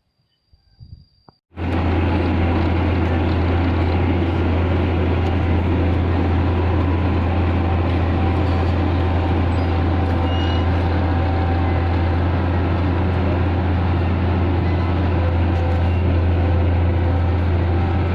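Heavy diesel engine of road-paving machinery running steadily with a strong low hum. It cuts in abruptly about a second and a half in, after a quiet start with a faint high steady whine.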